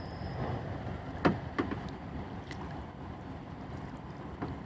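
Kayak being paddled on a creek: a few short paddle splashes, the loudest a little over a second in, over a steady hiss of moving water and wind.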